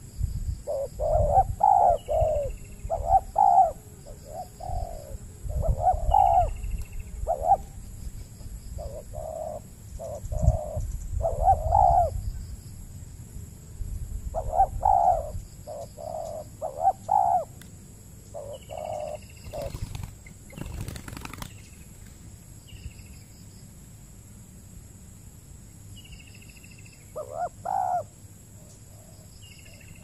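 Spotted doves cooing in repeated phrases, with short high chirps from another small bird in between. The cooing stops about eighteen seconds in, a brief noise follows around twenty seconds, and one more coo phrase comes near the end.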